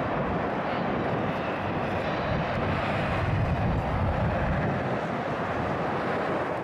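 USAF F-15 fighter jet taking off in full afterburner: the steady, loud noise of its two jet engines at full power as it lifts off and climbs away.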